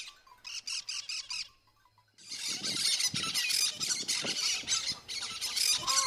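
A flock of cactus parakeets chattering and screeching, a dense, continuous run of harsh calls that starts about two seconds in. Before a short gap there are shorter bursts of squawking.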